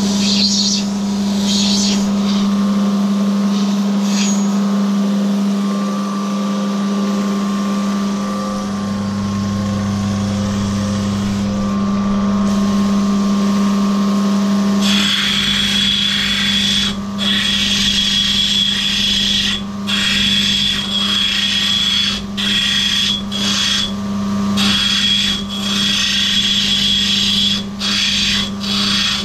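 Lapidary grinding machine's motor running with a steady hum while an opal is ground on a water-fed grinding wheel. About halfway in, a loud hissing grind sets in and keeps breaking off briefly as the stone is lifted and pressed to the wheel again.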